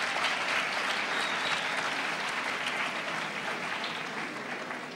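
Audience applauding, the applause slowly dying away toward the end.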